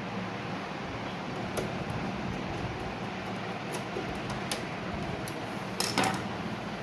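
Steady low hum and hiss, like a small machine or fan running, with a few light clicks and a louder clatter of clicks just before six seconds in.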